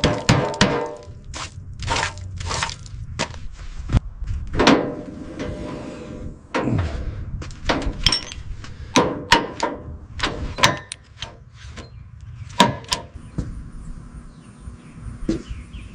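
Irregular knocks, thuds and bangs of hands-on work on a car body, some hits ringing briefly, a few per second with short pauses between.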